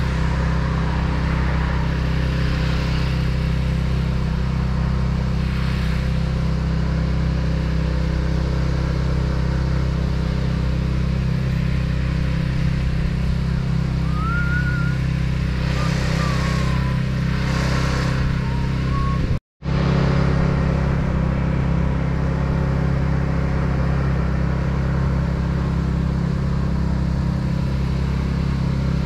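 Engine of a spray rig running steadily while the driveway is sprayed, with a few short hissing bursts of spray. The sound drops out suddenly for a moment about two-thirds of the way through.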